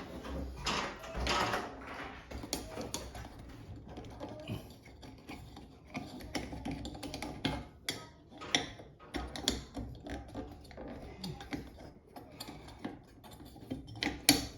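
Irregular clicking and clattering of small parts being handled while a recessed light's junction box is fitted and screwed together, with a brief rustling stretch near the start.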